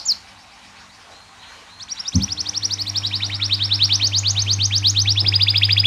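Domestic canary singing: a trill breaks off right at the start, then after a pause of almost two seconds comes a long, fast rolling trill of quick high falling notes, about a dozen a second. A steady low hum starts abruptly under the trill about two seconds in.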